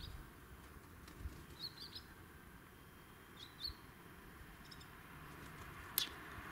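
Small birds chirping in a few short, high bursts over a faint low background rumble, with one sharp click about six seconds in.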